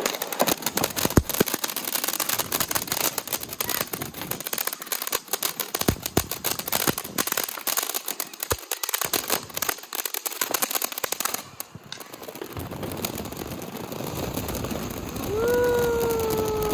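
Fireworks crackling and popping in a dense, rapid string for about eleven seconds, then stopping abruptly. Near the end comes one long held tone that falls slightly in pitch.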